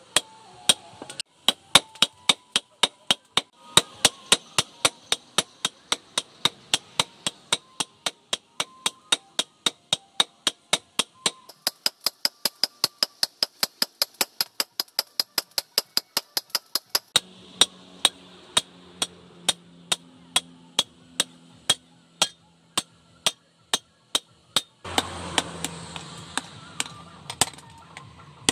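Hammers forging a red-hot leaf-spring steel blade on a steel post anvil, in a steady rhythm of about three blows a second, each with a bright metallic ring. A steady low hum joins near the end.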